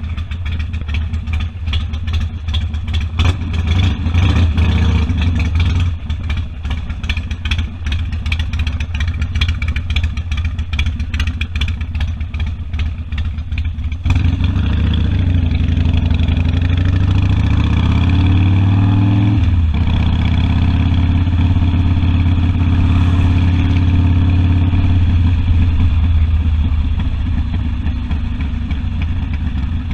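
Harley-Davidson Sportster V-twin engine idling with an uneven, lumpy beat, briefly blipped a few seconds in. About halfway it gets louder and rises in pitch under acceleration, drops suddenly at a gear change, then runs on steadily.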